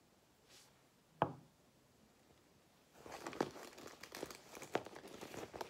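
Hands rummaging through a packed makeup pouch. A single sharp tap comes about a second in, and from about halfway a stretch of rustling follows, with small clicks of cosmetic items knocking together.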